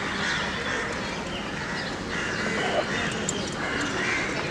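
Children's voices shouting and calling across an open football ground over a busy outdoor background, with no single sound standing out.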